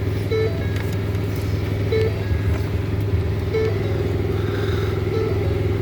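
A steady low vehicle hum, with a short soft chime repeating about every one and a half seconds: a warning chime sounding with the key in the ignition.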